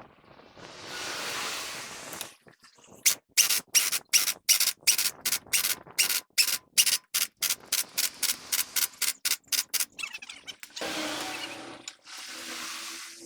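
Rhythmic rubbing strokes, about three a second, like hand scrubbing or sanding. Before and after them come longer hissing sweeps.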